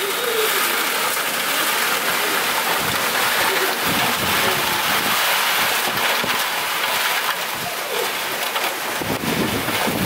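Heavy monsoon rain pouring down in a steady hiss, with strong gusty wind; gusts buffet the microphone in low rumbles now and then, most around the middle and near the end.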